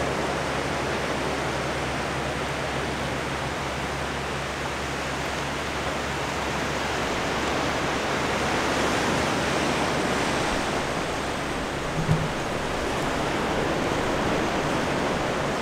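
Ocean surf breaking and washing on a sandy beach: a steady rushing noise, with a brief low bump about twelve seconds in.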